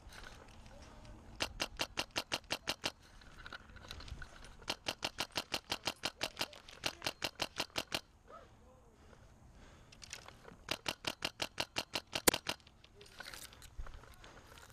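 Airsoft rifle firing three long strings of rapid shots, each a sharp click or pop, about seven a second, with short pauses between the strings.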